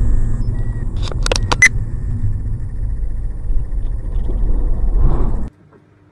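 Steady low rumble of road and engine noise inside a moving car's cabin, with a quick run of four sharp clicks about a second in. The rumble cuts off abruptly about five and a half seconds in.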